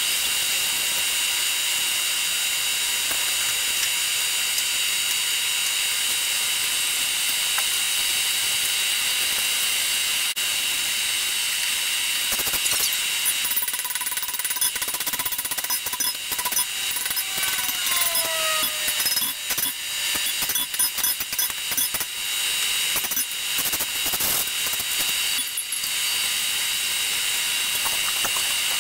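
Hand hammer striking a glowing 5160 steel knife blade on an anvil: a run of blows from about halfway through that stops shortly before the end, over a steady hiss.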